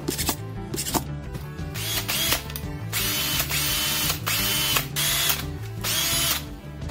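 Makita DDF456 18V cordless driver drill, newly fitted with a rotor, stator and carbon brushes, run free in about five short trigger pulls after a couple of clicks. The motor whines up and falls away with each pull and runs normally now that the repair is done.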